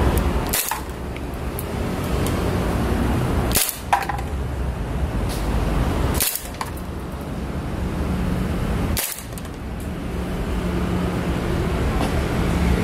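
Gas blowback airsoft pistol powered by green gas, firing four single shots two and a half to three seconds apart, over a steady low rumble.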